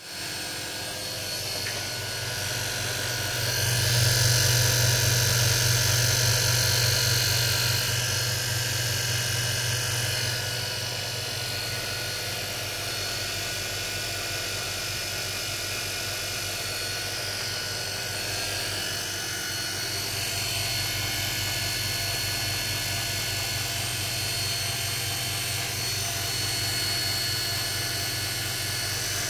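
Motor-driven test bench spinning a Jawa 6 V 40 W motorcycle dynamo: a steady mechanical hum and whir with a fast low pulsing. It gets louder about four seconds in, then eases back after about ten seconds and runs on evenly.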